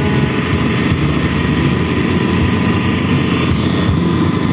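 Motorized bangka outrigger boat underway: its engine runs with a steady, loud drone, mixed with the rush of water splashing off the hull and outrigger.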